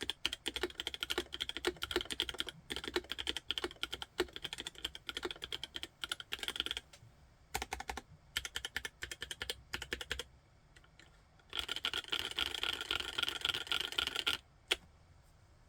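Typing on a mechanical keyboard fitted with Kailh Cream switches, in runs of keystrokes broken by short pauses. A fast, dense flurry of keystrokes comes about two-thirds in, then a single stroke, and the typing stops shortly before the end.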